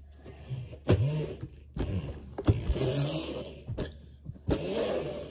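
Bike being ridden hard over snow: rushing, scraping tyre and riding noise that comes in uneven surges, with a few sharp knocks.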